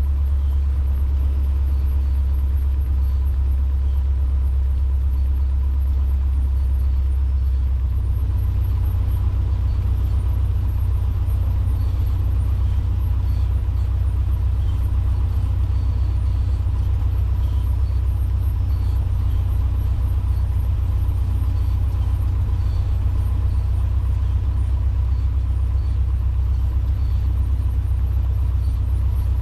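Cessna 150's Continental O-200 four-cylinder engine running steadily at low power, a deep drone that steps up slightly in pitch about eight seconds in.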